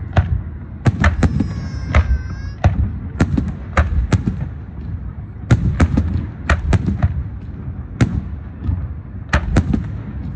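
Fireworks going off: a rapid, irregular string of sharp bangs and cracks, roughly two a second, over a continuous low rumble. A brief high whistling tone is heard about a second and a half in.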